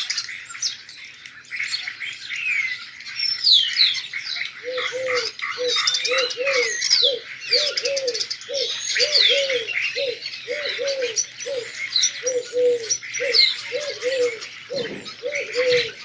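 A chorus of small birds chirping and trilling throughout. From about four seconds in, a pigeon coos: a low call repeated steadily, about twice a second, under the chirping.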